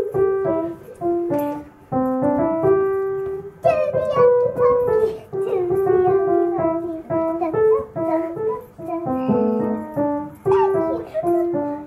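Piano music: a simple melody of short held notes stepping up and down, played in phrases with brief pauses between them.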